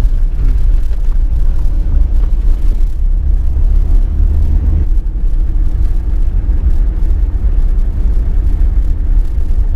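Car driving on a dirt road, heard from inside the cabin: a steady low rumble of engine and tyres, rising and falling slightly with the rough track.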